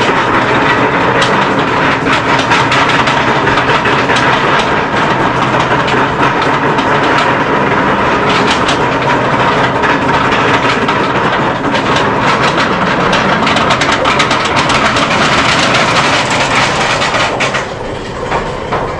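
Roller coaster train running along its track: a loud, steady rattle and rumble with dense clicking from the wheels and a steady whine. It eases off shortly before the end.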